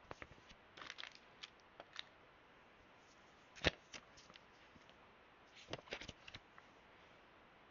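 Packaging and small parts handled by hand during an unboxing: scattered light clicks and rustles, with one sharper click near the middle.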